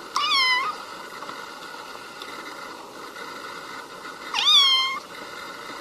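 A kitten meowing twice, two short high-pitched calls about four seconds apart, each rising and then falling in pitch. A steady faint hiss runs between them.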